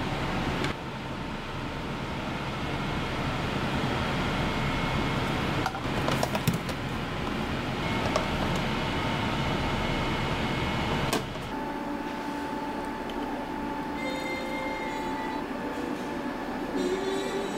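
Steady rumbling kitchen background noise, with a few sharp clinks of metal utensils against a pot and bowl. About eleven seconds in the rumble drops and a lighter hum with a few steady tones takes over.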